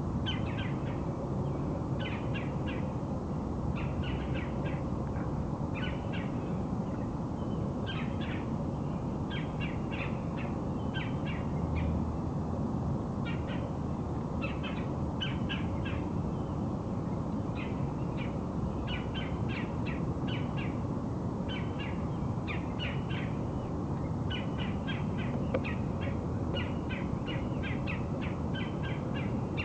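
Birds calling: short, harsh call notes in quick clusters of three to six, repeated throughout, over a steady low rumble of background noise.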